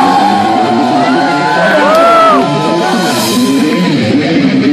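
Live band music played loudly through a club PA, with shouted vocals and crowd yells over it.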